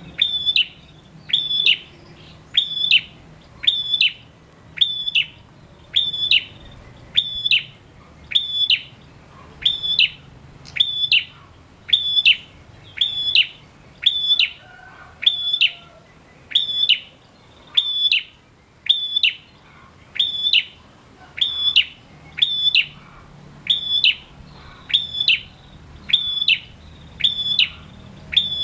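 A male ashy tailorbird calling one sharp note that drops in pitch at its end, repeated evenly about once every three-quarters of a second.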